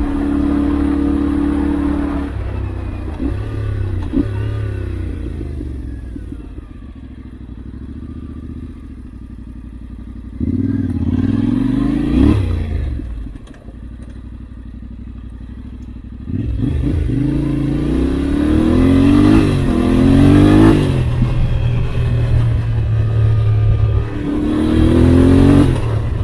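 Yamaha Ténéré 700's CP2 parallel-twin engine under way, its revs climbing and dropping again and again as the throttle is opened and closed, with quieter, lower stretches about a quarter of the way in and just after the middle.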